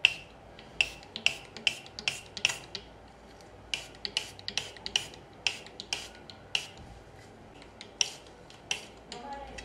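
Plastic trigger spray bottle misting water in quick repeated squirts, about three a second, with a couple of short pauses.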